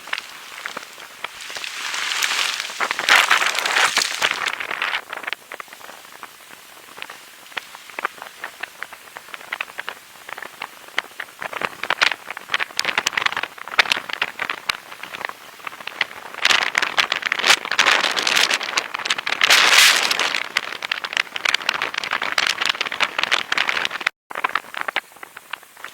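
Rain pattering densely on a surface, a crackling hiss of many small drops that swells louder several times. It cuts out for a moment near the end.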